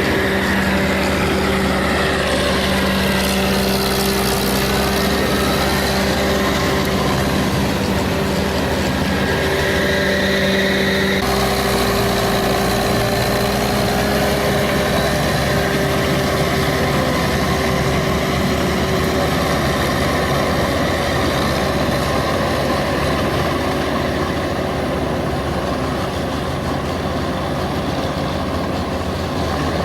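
The diesel engine of a ploughing machine running steadily while it works a wet paddy field. The engine's note changes about eleven seconds in.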